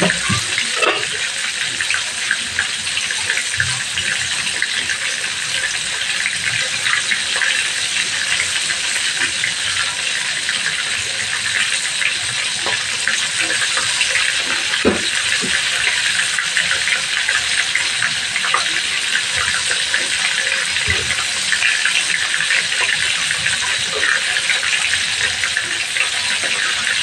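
Chicken pieces frying in shallow oil in a wok: a steady sizzle with scattered pops and crackles.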